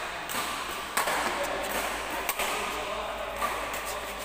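Badminton racquets striking a shuttlecock in a doubles rally: a few sharp hits about a second apart.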